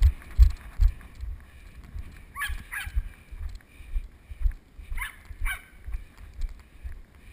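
Dull, rhythmic thumps of footfalls on grass, two to three a second, carried through a head-strapped GoPro in its waterproof housing as the wearer runs and then walks. Twice, about two and a half and five seconds in, a quick pair of short high-pitched calls cuts in.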